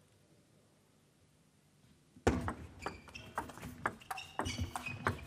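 A hushed hall while the server sets up, then about two seconds in a doubles table tennis rally starts: quick, sharp clicks of the ball on the bats and the table, coming irregularly several times a second.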